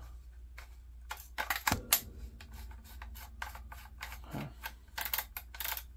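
Remington 1100 shotgun's magazine cap being screwed down onto the magazine tube by hand: irregular clicking and rubbing of metal on metal, with one louder knock about two seconds in that rings on briefly.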